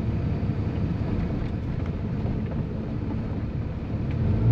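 Cab noise of a heavy pickup truck driving on a snow-covered road: a steady low rumble of engine and road noise. Near the end it grows louder into a steadier, deeper drone.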